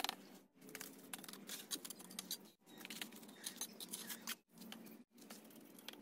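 Steel trowel scraping and spreading wet mortar over brickwork, with small irregular clicks and taps of the blade on brick. The sound cuts out briefly a few times.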